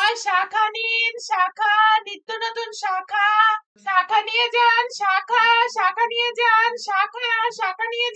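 A high-pitched voice singing a quick run of short syllables with a wavering pitch, a song on the soundtrack.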